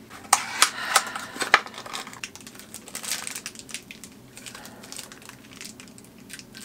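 Small cardboard blind box and its packaging being opened and handled, crinkling and crackling: a cluster of sharp crackles in the first second and a half, then lighter, scattered crinkling.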